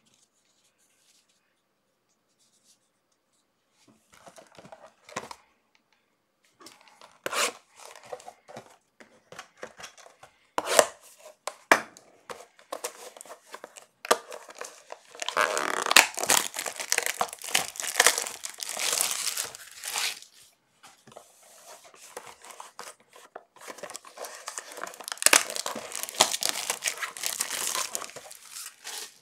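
Foil wrappers of trading card packs being torn open and crinkled, with scattered rustling and clicks. It starts after a few nearly silent seconds, and the densest tearing comes about halfway through and again near the end.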